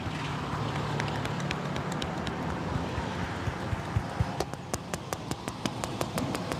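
Hands slapping and tapping in a percussive massage: scattered taps, then a fast, even run of about six or seven slaps a second from a little past the middle. Under it, the steady hum of street traffic.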